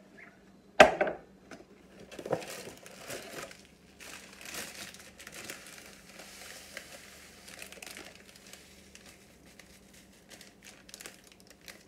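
Panko breadcrumb packaging crinkling and rustling as breadcrumbs are poured into a glass measuring cup, with a sharp knock about a second in and a smaller one a moment later.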